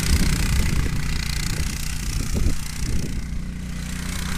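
The 200 cc single-cylinder four-stroke engine (a Honda GX200 clone) of an off-road drift buggy kart, running as the kart drives.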